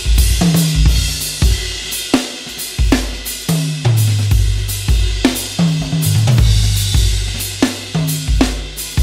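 Groove Drum Co. Pancake drum kit, with very shallow shells tuned high, played with sticks in a groove. Bass drum thumps and snare hits are joined by toms ringing at stepped pitches, with cymbals washing on top.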